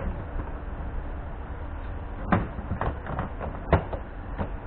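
Hard plastic trim panel being pressed and snapped into its clips along the back of a car's engine bay: a run of sharp knocks and clicks in the second half, the loudest about three-quarters of the way through.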